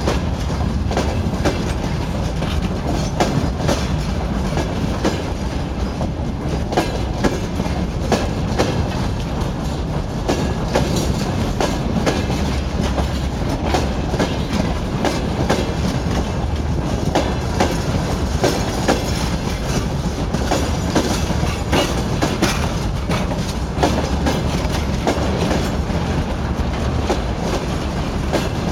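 Freight train running on the rails: a steady low rumble with continual wheel clatter over rail joints.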